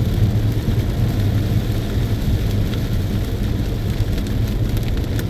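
Steady drone of a car driving in the rain, heard from inside the cabin: engine and wet tyre noise with rain on the car. A single sharp click comes near the end.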